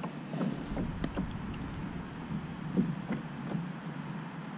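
Small waves lapping against the kayak's hull: irregular soft slaps and splashes, about a dozen, over a steady background wash.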